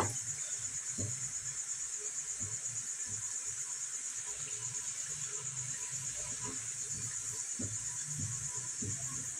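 Crushed garlic frying in hot mustard oil in a steel pan, stirred with a metal spoon that gives scattered soft scrapes and knocks. A steady high-pitched trill with a fast even pulse runs under it.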